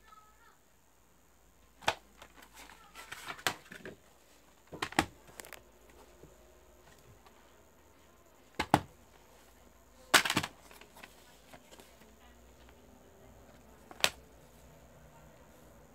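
Plastic Blu-ray cases being handled: a scattered series of sharp clicks and snaps, the loudest about ten seconds in, as a case is snapped open, and a short click near the end as a disc is pressed in its tray.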